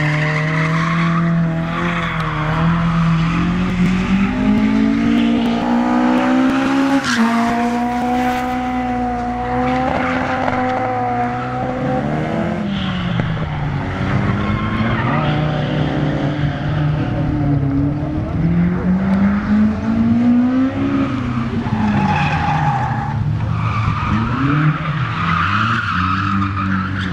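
Small hatchback car engines revving hard while drifting, the pitch rising and falling again and again, with tyres squealing on the tarmac; the squeal is strongest near the end.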